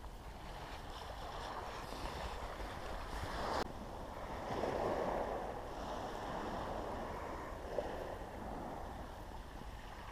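Sea waves washing on a shingle beach, mixed with wind noise on the microphone, swelling and easing in slow surges; one surge breaks off abruptly about a third of the way in.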